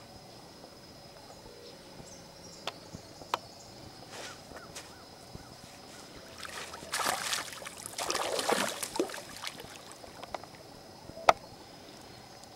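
Water splashing for about two and a half seconds near the middle, from a hooked bass thrashing at the surface as it is brought in. A few sharp clicks and knocks come before and after.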